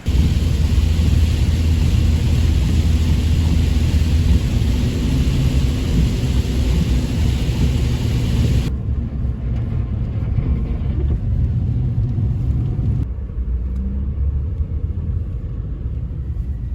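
A car driving, with a steady low rumble of engine and tyres on the road. The sound changes abruptly twice, about nine and thirteen seconds in, each time losing its higher hiss.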